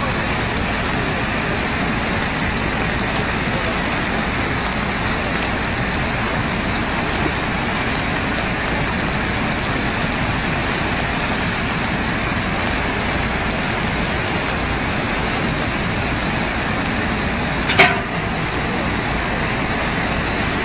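Floodwater rushing in a swollen river, a steady noise of water. A short pitched sound rises briefly above it near the end.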